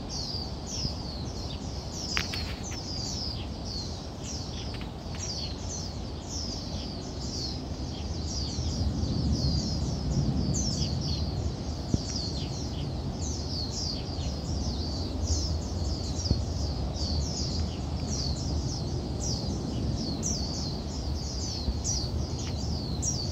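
Distant jet airliner rumble, a Boeing 737-800 seen far off across the airfield, swelling about a third of the way in and then easing. Over it runs a steady series of high, quick descending chirps, about two or three a second, from a calling bird or insect.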